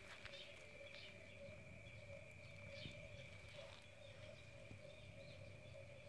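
Faint, steady frog chorus from flooded rice paddies, heard as two unbroken droning tones, with a few soft rustles on top.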